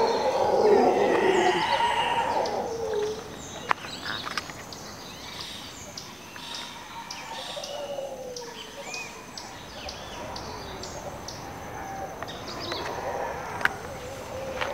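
A troop of mantled howler monkeys roaring together, the chorus fading away over the first three seconds. In the lull that follows, birds chirp and call from the trees.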